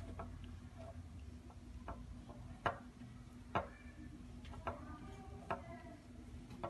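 Marker tip tapping and squeaking on a laminated number chart as numbers are struck out one after another: about eight short clicks, roughly one a second, with brief squeaks.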